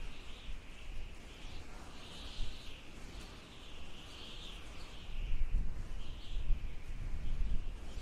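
Continuous high-pitched chirping in the background, wavering in level, with irregular low bumps and rubbing from an eraser worked over a paper card on a tabletop.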